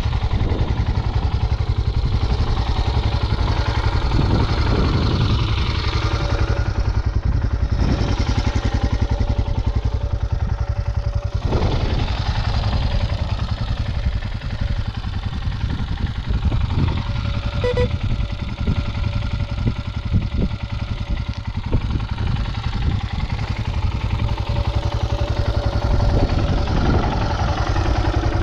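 Royal Enfield Himalayan 411's single-cylinder engine running continuously as the motorcycle is ridden, with a strong low rumble and an engine note that shifts up and down throughout.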